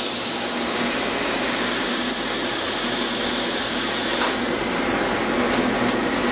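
Steady factory-floor machinery noise from an automated machining cell running: a dense, even hiss with a low steady hum under it.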